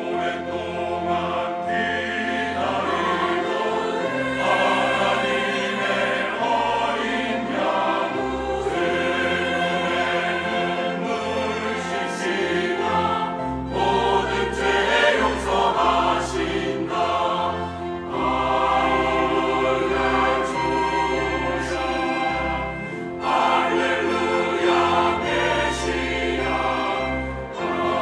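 Large mixed church choir singing a Korean sacred anthem in full voice, with piano and strings accompanying.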